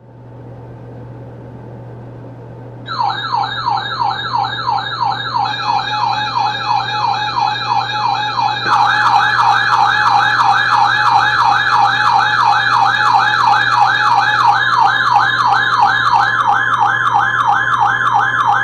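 Electronic warbling siren, its pitch rising and falling about three times a second, starting about three seconds in over a steady low hum. More layers of the siren join, growing louder about nine seconds in, and a steady high tone joins later.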